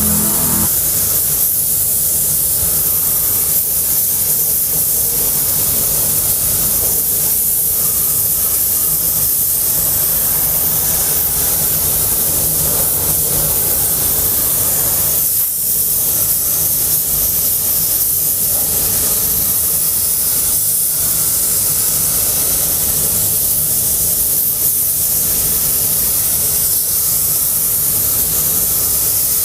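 Compressed-air paint spray gun spraying paint in a steady, loud hiss, with a few brief dips.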